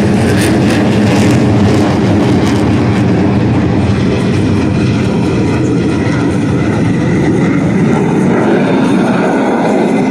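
Blue Angels F/A-18 Super Hornet jets flying past at low level, a loud, continuous jet roar with crackle in the first few seconds.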